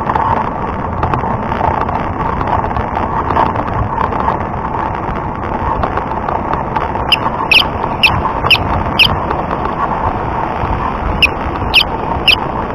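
Steady wind and road rush on a bike-mounted camera riding along a road. In the second half comes a run of short, high squeaks about two a second, five in a row and then three more.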